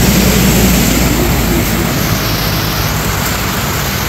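Heavy rain pouring down, with the low rumble of a semi-trailer truck's engine and its tyres on the wet road, slowly fading as it moves away.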